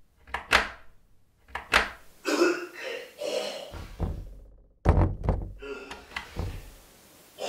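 Metal lever handle of a wooden door being pressed and rattled, with sharp clicks and thuds against the door: a couple of separate tries near the start and a quick cluster of thuds about five seconds in. A muffled voice-like sound comes in between.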